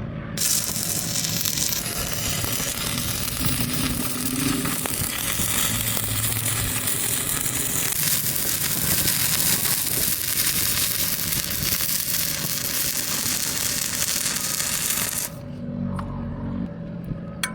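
Electric welding arc burning steadily as a dense hiss. It starts just after the beginning and cuts off suddenly about two seconds before the end.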